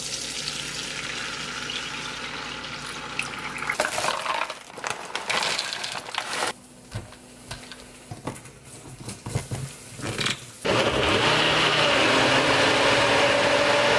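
Liquid egg white poured from a carton into a hot frying pan with a steady hiss, then knocks and clatters as fruit is dropped into a blender cup. About eleven seconds in, a NutriBullet-style personal blender starts and runs steadily, the loudest sound, blending a fruit smoothie.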